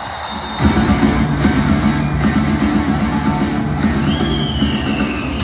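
Live hard-rock band playing loud electric guitars and drums, the full band coming in hard about half a second in. From about four seconds in a long, high note slides slowly down over the band.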